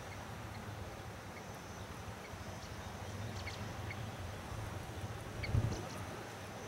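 Open-field ambience: a steady low rumble with short, faint bird chirps now and then, and a brief low thump a little after five seconds in.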